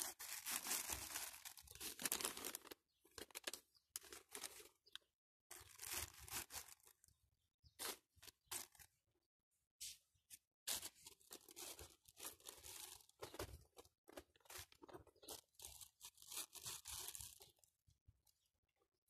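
Scratchy, crackly rustling close to the microphone, coming in irregular bursts broken by short silent gaps.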